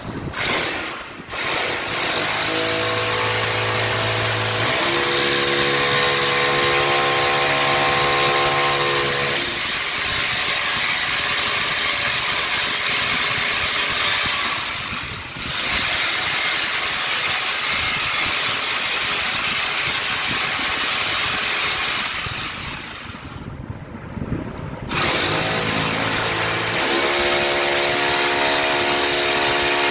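Corded electric drill running under load as it bores into a wall, in long continuous stretches. The drill stops briefly about two-thirds of the way through, then starts again.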